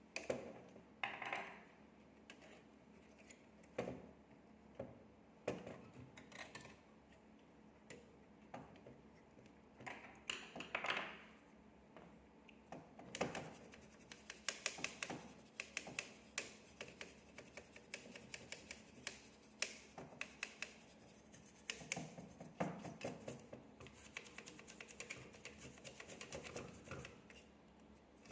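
Faint handling noise from hands and small tools working on a graphics card: scattered clicks and scratches at first, then from about halfway a denser run of rapid ticking and scraping.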